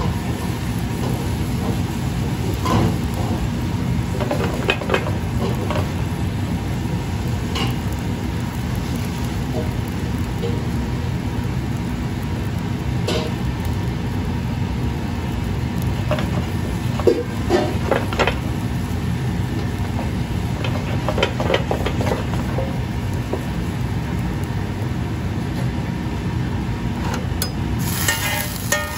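Steady low rush of commercial gas stove burners under a steel pan of simmering broth, with scattered clinks of pans and utensils. Near the end comes a brighter metallic clatter as a second pan is set over the first as a lid.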